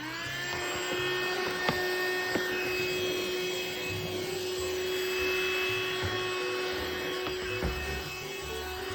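Cordless handheld vacuum cleaner running: a steady motor whine over rushing air, with a couple of short sharp ticks about two seconds in.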